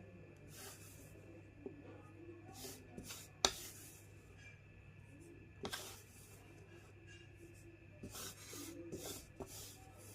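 Chalk being rubbed and crunched: scattered short, faint scraping rustles, with sharp cracks about three and a half and about six seconds in.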